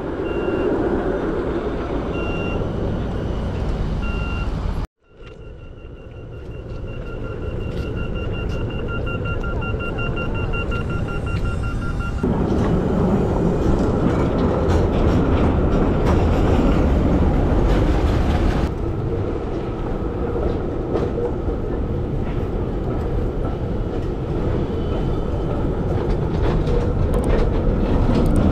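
Helsinki street trams at a stop and on the move: a few spaced electronic beeps, a cut, then a fast run of beeps, after which the louder steady running noise of trams rolling along street rails takes over about twelve seconds in.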